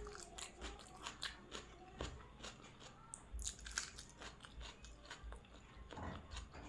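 A person eating: bites and chewing with many short, crisp crunches.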